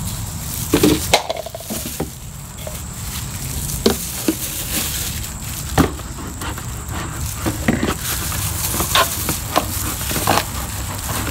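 Thin plastic gallon jug and plastic funnel being handled, a string of scattered crinkles, taps and knocks, over a steady low background rumble.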